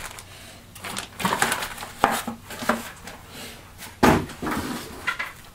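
Irregular rustling and clatter of plastic-wrapped parts being handled on a wooden workbench, with one sharp knock about four seconds in, the loudest sound.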